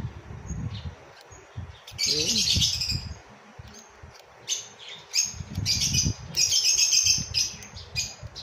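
Small birds chirping in bursts of rapid, high-pitched notes, one burst about two seconds in and a longer run in the second half.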